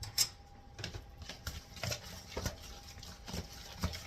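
A spoon stirring a thick mixture of chicken pieces, cream of mushroom soup, butter and seasonings in a dish, giving irregular knocks and scrapes against the dish, the sharpest just after the start.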